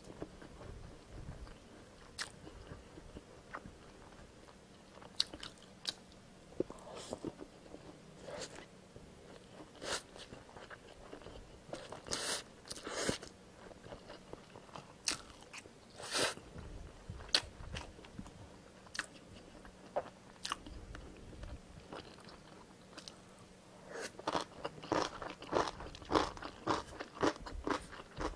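Close-miked mouth sounds of a person eating fried egg and Indomie Mi Goreng stir-fried instant noodles: wet chewing clicks, with a few louder bursts around the middle. Near the end the chewing comes quickly, about three clicks a second.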